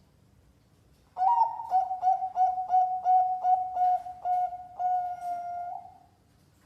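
Zebra dove (perkutut) cooing one song phrase: a quick run of about nine short notes at an even pitch, ending in one longer held note that fades away.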